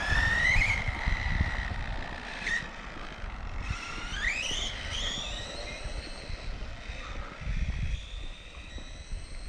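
A 1/18-scale electric RC car's motor and transmission whining as it accelerates, rising in pitch just after the start and again, more steeply, around four seconds in, then holding and fading. A low rumble of small tyres on rough, broken asphalt runs underneath.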